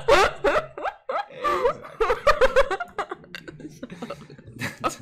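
A woman and a man laughing together in quick repeated bursts, dying down near the end.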